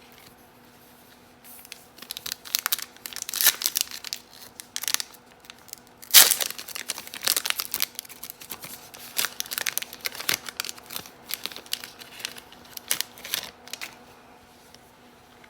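Panini Prizm trading-card pack wrapper being torn open and crinkled: a long run of crackling tears and rustles starting about a second and a half in, loudest about six seconds in, over a faint steady hum.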